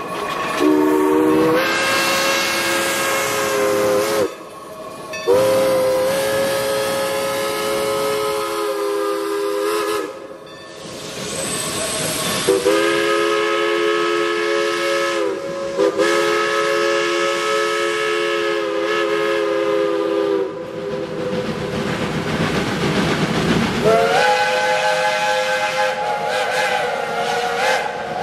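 Steam locomotive chime whistles blowing a series of long blasts of a few seconds each, every blast a chord of several notes that slides up in pitch as it opens and down as it closes. A different, higher-pitched whistle sounds near the end, and steam hisses between the blasts.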